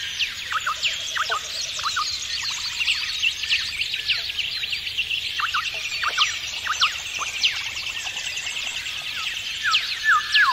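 A chorus of birds chirping and calling with many short, quick notes, over a steady high-pitched trill of insects.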